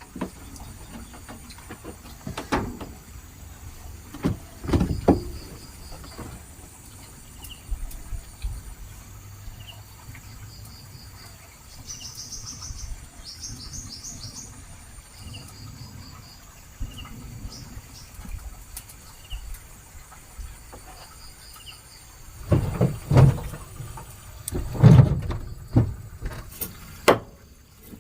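Birds chirping and trilling, with a short high call repeated about every second and a half. Several loud knocks and thumps, most of them near the end.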